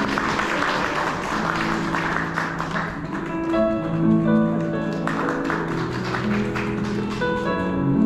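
Background music with plucked notes and held tones that come through clearly from about three seconds in. For the first three seconds the music sits under a noisy, crackling haze.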